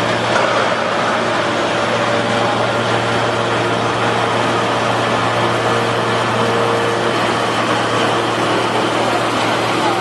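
Hydraulic scrap-metal baling press running: its electric motor and hydraulic pump give a steady low hum under a loud, even mechanical noise.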